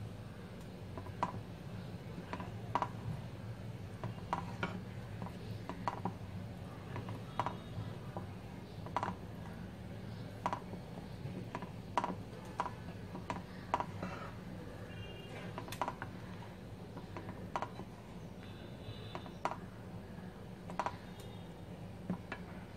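Wooden spatula knocking and scraping against a kadai while stirring kadhi: light, irregular clicks about once or twice a second.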